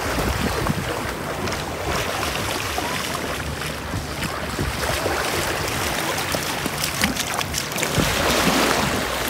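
Feet splashing through shallow seawater as children wade and run, with small waves lapping at the shoreline and wind rumbling on the microphone. A cluster of sharper splashes comes a little past the middle.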